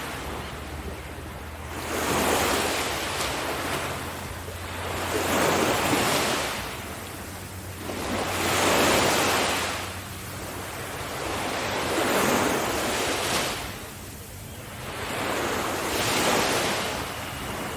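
Sea waves breaking on a beach in a slow rhythm. Each surge swells and falls back about every three to four seconds, five times in all.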